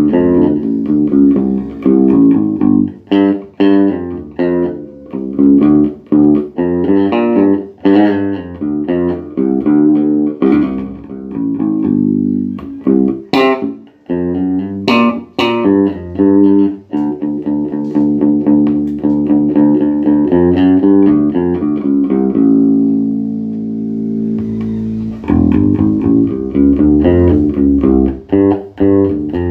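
Bass guitar played through a Peavey MaxBass 110 combo amp, working again after its power supply, preamp and class D chip were repaired. It plays a busy run of plucked notes, with a few sharp, bright-attack notes around the middle and longer held notes ringing out in the second half.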